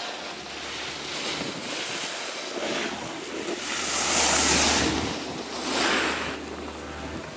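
Skis hissing and scraping over packed snow through plough turns, swelling twice, about four and six seconds in, as the skier carves close by. A steady low wind rumble on the microphone sits underneath.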